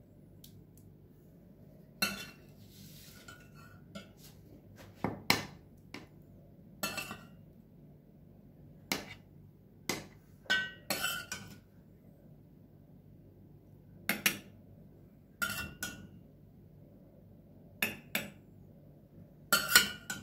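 Long metal spoon clinking against a stainless steel pot and a metal baking tray while scooping out meat sauce and spreading it over pasta: sharp, irregular metallic clinks with a short ring, one every second or two, a quick double clink near the end the loudest.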